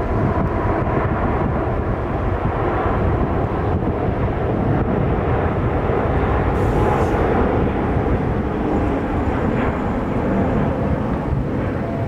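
Airbus A380 jet engines running, a loud, steady rumble with a few faint whining tones above it.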